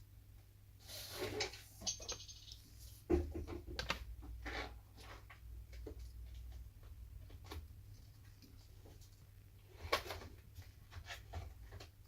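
Small clicks, taps and scrapes of a smartphone's plastic parts and repair tools being handled during reassembly, with a sharp click about three seconds in and another near the end.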